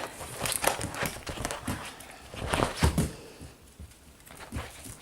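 Cockapoo puppies scrabbling and pawing about: irregular scuffs, clicks and taps, with a few louder knocks about two and a half to three seconds in.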